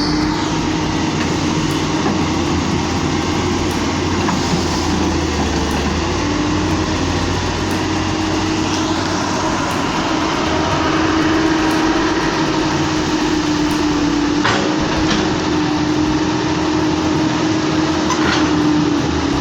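Large excavator's diesel engine running steadily under load, with a constant droning tone. Two short sharp knocks come in the second half.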